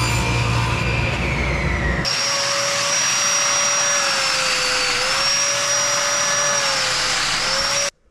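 Festool Domino joiner running with its dust extractor hooked up: a steady motor whine whose pitch dips twice as the cutter takes load, stopping suddenly near the end. For about the first two seconds there is a different steady machine hum, with a tone that falls away just before the change.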